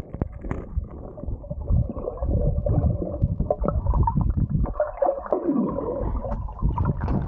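Underwater sound picked up by a camera submerged in a swimming pool: a continuous muffled low rumble with bubbling and gurgling as swimmers move and bubbles rise.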